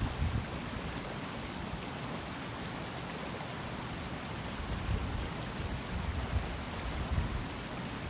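Highland river water rushing steadily, with irregular low rumbles rising and falling beneath the rush.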